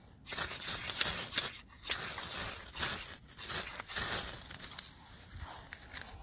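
Ferrocerium rod (fire steel) scraped hard with a striker: several long rasping strokes throwing sparks into dry wood shavings, dying down over the last second or so as the shavings catch.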